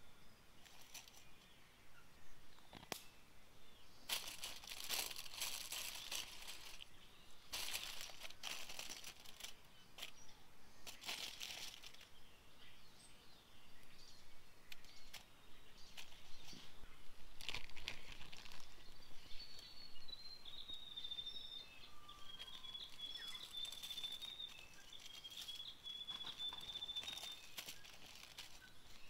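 Aluminium foil crinkling in irregular bursts as raw meat is handled and seasoned on it. A thin, high whistle wavers faintly in the background through the second half.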